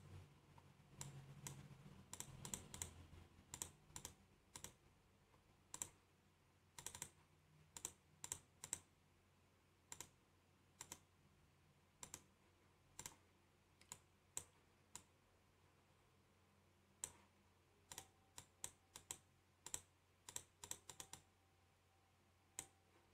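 Computer mouse and keyboard clicks, sharp and irregular, some in quick pairs, over a faint steady hum.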